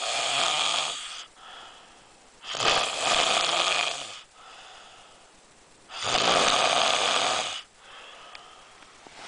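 Snoring in a steady rhythm: a loud snore roughly every three and a half seconds, each lasting about a second and a half, with a quieter breath between snores.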